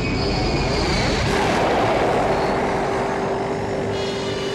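A vehicle engine sweeping past, swelling to its loudest about two seconds in and then fading, over a steady hum.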